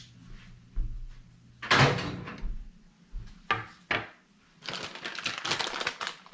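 Kitchen handling sounds: a loud knock like a cupboard door shutting, a couple of lighter knocks, then a dense run of small clicks and rustles from about two thirds of the way in.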